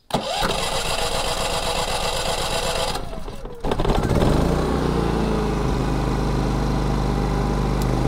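Champion 3400-watt dual fuel inverter generator's single-cylinder engine started on propane with the electric starter and choke on: the starter cranks for about three seconds, then the engine catches, revs up and settles into steady running.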